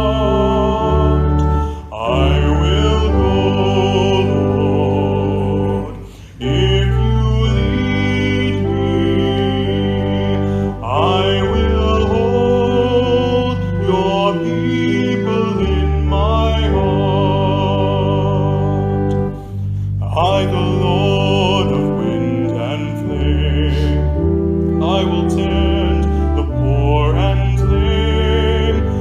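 Worship music: a voice singing with vibrato over sustained instrumental accompaniment, with short breaths between phrases about 2, 6 and 20 seconds in.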